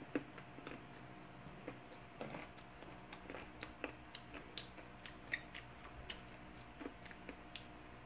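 Faint close-up eating sounds: chewing with small, irregular wet mouth clicks and smacks.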